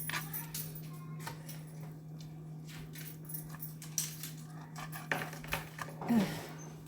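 Knife cutting chicken tenderloins in half on a cutting board: irregular clicks and taps of the blade and utensils. A steady low hum runs underneath.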